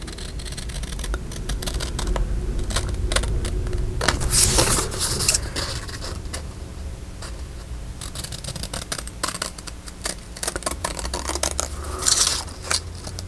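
Scissors cutting slowly through paper, many short snips while a small picture is cut out along its line. Two louder swishes come about four seconds in and again near the end.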